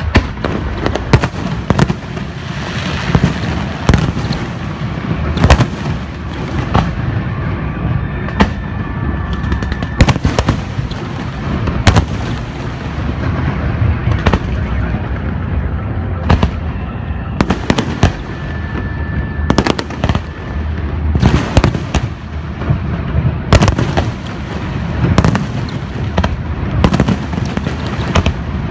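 An aerial fireworks display: a constant low rumble of shell bursts and crackle, with sharp loud bangs every second or so.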